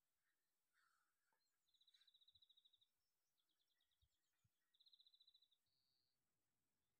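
Very faint songbird trills over near silence: three rapid, buzzy trills at the same high pitch, each about a second long, with a stuttering series of shorter notes between them and a brief note near the end.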